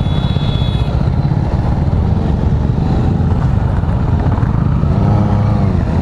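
Motorcycle engines running at low speed and idling close by, a steady low, pulsing rumble. About five seconds in, an engine's pitch rises and falls.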